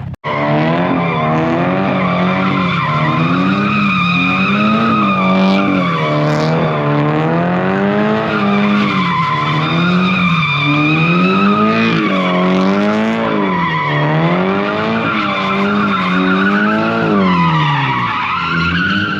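Car spinning its tyres: the engine is held at high revs, its pitch swinging up and down about once a second, while the tyres squeal steadily. The revs drop briefly near the end.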